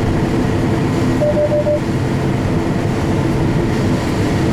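Combine harvester running steadily, heard from inside the cab, with four quick short beeps about a second in.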